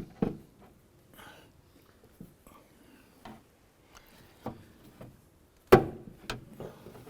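Scattered plastic and metal clicks and knocks of a car door's latch actuator rod being worked into its plastic clip on the exterior door handle, with one loud sharp click late on.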